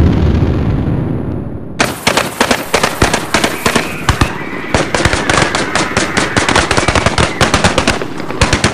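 Battle sound effects: a deep explosion rumble fading away over the first two seconds, then rapid gunfire, bursts of many cracking shots a second with short pauses between them.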